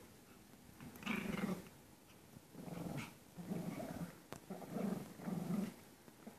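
Pomeranians play-growling at each other while play-fighting: about five short, low growls in quick succession, starting about a second in.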